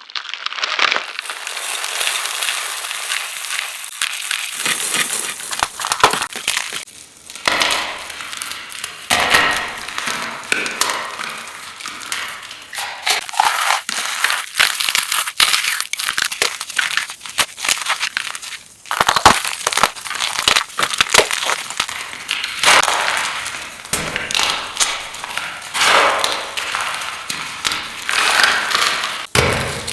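Blocks of fresh gym chalk being crushed and crumbled, a dense run of dry crunches and sharp cracks, with an added echo effect.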